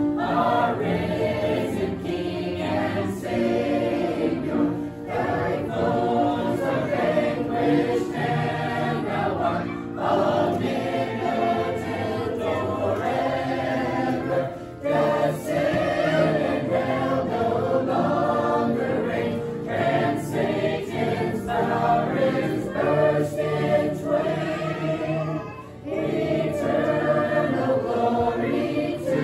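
Mixed choir of men, women and children singing a hymn unaccompanied, with short breaks between phrases about halfway and near the end.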